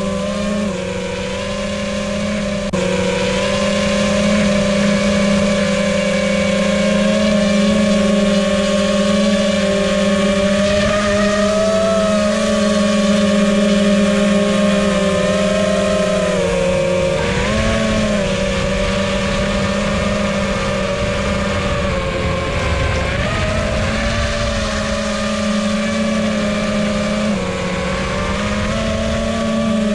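iFlight Titan XL5 5-inch FPV quadcopter's motors and propellers whining steadily in flight, the pitch dipping and rising with the throttle a little past halfway and again later. One propeller is dinged, which the pilot says makes it sound funny.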